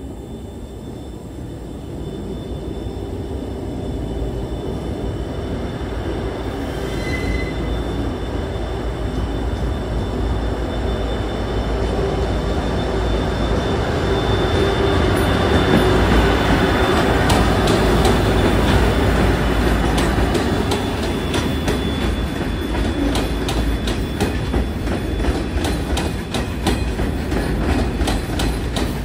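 Pacific National diesel freight locomotives hauling an aggregate train approach and pass, their engine noise building steadily to its loudest about sixteen seconds in. The hopper wagons then roll by with rapid, regular clicking of wheels over the rail joints.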